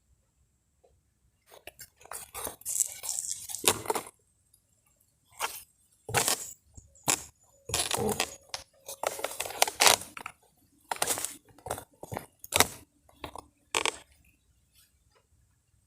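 Fishing tackle being handled close to the microphone: irregular rustling, clicks and clinks, packed together from about a second and a half in and thinning out near the end.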